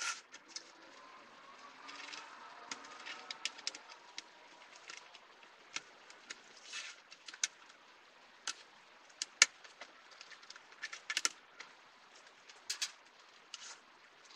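Scattered light clicks and taps as the bare LCD panel of an edge-lit LED TV, in its thin metal frame, is handled and set square on a cutting mat, with a brief wavering tone about two seconds in.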